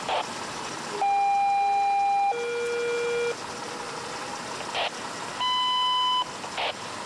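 Fire dispatch alert tones over a two-way radio: a steady tone followed straight away by a lower one, then a third single tone a couple of seconds later, with short bursts of radio static in between.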